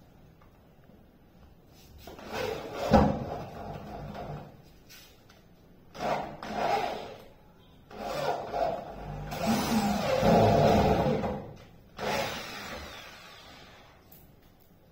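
Carpentry work on plywood door panels: several separate bouts of wood rubbing and scraping, each one to three seconds long, the longest and loudest from about eight to eleven and a half seconds in.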